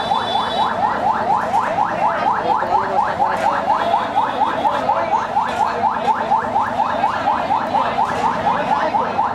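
Rapid electronic chirping that repeats evenly at about five chirps a second, like a vehicle alarm or warning horn.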